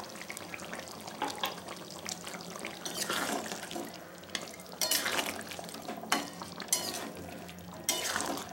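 Chicken simmering and sizzling in thick gravy in a pan, while a spatula stirs and scrapes against the pan, with about half a dozen sharp scrapes and knocks as spice powder is mixed into the meat.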